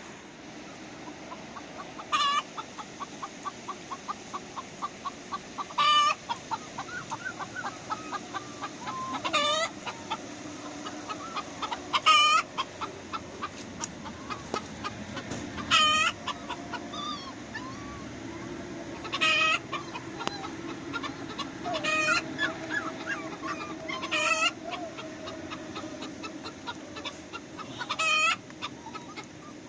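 Chickens clucking: soft, rapid clucks with a short, loud, high call about every three to four seconds.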